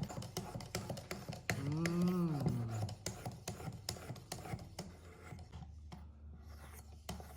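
800-grit stone of a Work Sharp guided knife sharpener drawn again and again along a single-bevel broadhead's edge: quick repeated scraping and clicking strokes, several a second, while the bevel is worked toward raising a burr. About two seconds in, a short pitched sound rises and falls in pitch over the strokes.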